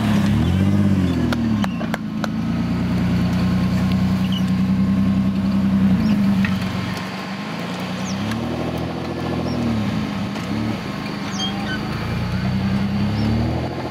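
Modified off-road competition Jeep's engine revving hard as it climbs a steep dirt mound. The revs are held high for several seconds, then blipped up and down a few times and raised again near the end. A few sharp knocks are heard early on.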